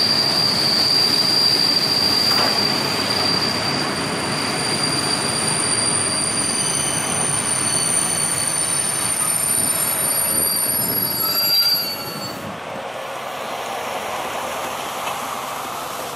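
Passenger train braking to a stop, heard from inside the carriage: the wheels and brakes squeal in several high steady tones over the rolling rumble. The squeal cuts off about twelve seconds in as the train halts, leaving a quieter low hum.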